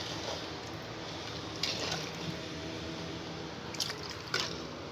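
Sugar syrup with citrus halves sloshing in an aluminium pot as a wooden spoon stirs undissolved sugar into the water, with a few light knocks of the spoon.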